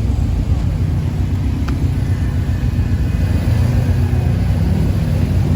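Car engines running with a loud, steady low rumble.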